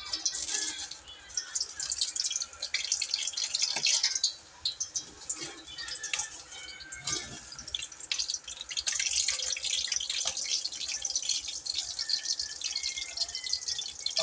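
Hot liquid crackling and spitting in a stainless steel pan on an induction cooker, a dense run of small pops and sizzle that comes and goes in waves.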